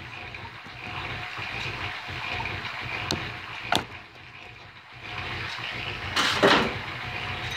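Motor-driven Champion camelback drill press running, its bit cutting into steel under power feed. Two sharp clicks come a little past the middle, and a louder burst of noise about six seconds in.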